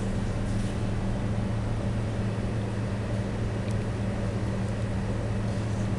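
Steady mechanical hum: a constant low drone with a higher tone above it over a light hiss, unchanging in level.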